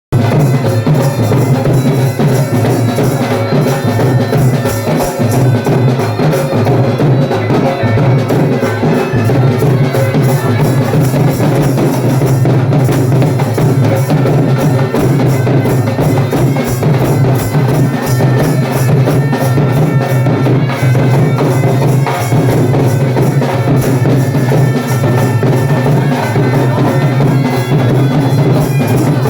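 Been (gourd reed pipe) playing a Haryanvi folk tune over its steady drone, with drums beating a regular rhythm.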